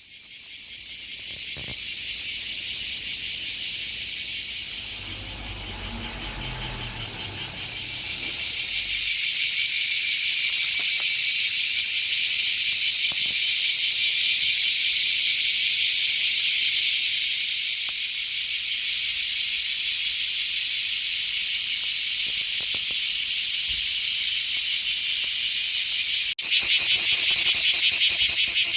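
A loud chorus of cicadas buzzing continuously in a dense, finely pulsing drone. A brief low rumble comes about a third of the way in. Near the end there is a click, after which the chorus is louder.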